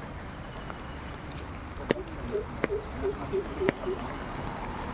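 Steady rush of rain-fed flowing water, with birds giving short, high, falling chirps. In the second half come a low wavering sound and three sharp clicks.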